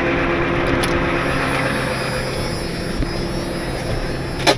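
Heavy wrecker truck's engine running steadily, with a sharp click near the end.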